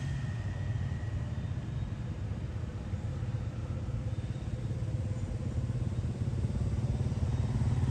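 Steady low engine rumble, growing a little louder near the end.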